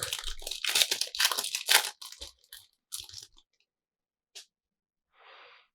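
Foil trading-card booster pack wrapper being torn open and crinkled: a dense run of crackling for about the first two seconds, then a few scattered rustles and ticks.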